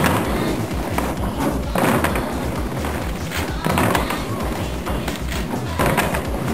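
White plastic stools knocked and scraped on a wooden floor, together with stomping feet, in an uneven percussive beat of heavy thumps roughly a second apart.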